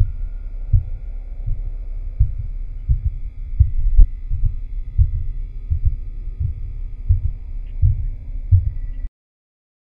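Steady electrical hum of fluorescent ceiling lights, with dull low thumps about two a second like footsteps on carpet. The sound cuts off suddenly near the end.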